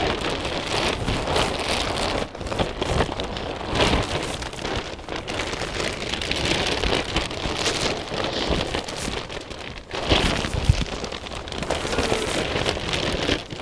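Heavy greenhouse-grade polyethylene sheeting rustling and crackling continuously as it is pulled taut and handled over the tunnel hoops.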